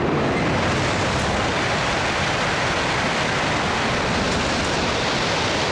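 E5 and E3 series Shinkansen, coupled together, passing through the station at high speed: a loud, steady rush of wheel and air noise. The sound rings back off the station's enclosing roof and walls.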